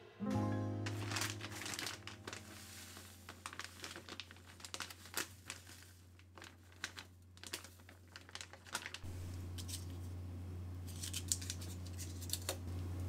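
Crinkling and rustling of plastic packaging being handled and torn open, in irregular crackles with a few sharp clicks.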